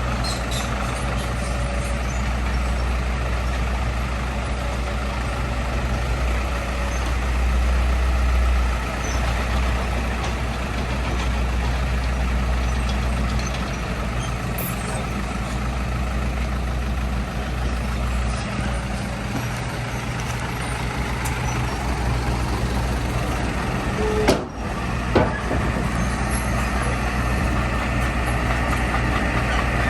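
Heavy diesel engine of earthmoving machinery running steadily with a deep rumble, which eases a little about nine seconds in. Two short, sharp sounds come close together a little over halfway through the second half.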